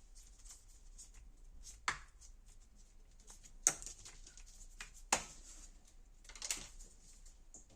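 Handling noises: light rustling broken by a few sharp clicks or taps spread across several seconds, with no motor running.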